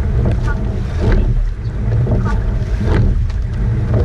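Wind buffeting the action camera's microphone on a racing eight under way, with the knock of the oars in their gates and the splash of the blades coming once each stroke, about every two seconds.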